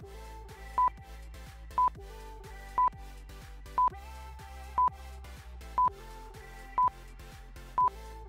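Quiz countdown timer beeping, a short high electronic beep about once a second over quiet background music, marking the seconds left to answer.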